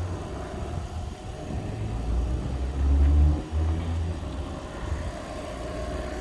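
Car driving: a steady low engine and road rumble that swells to its loudest about three seconds in.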